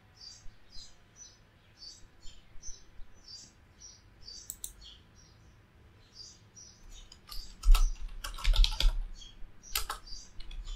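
Typing on a computer keyboard: irregular keystrokes, light at first, then a louder, quicker run of strokes about two-thirds of the way in.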